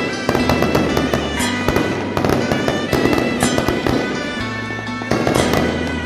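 Dense, rapid firecracker crackling from electronic firecracker units, continuous through the stretch, over loud music with long held tones and a low bass line.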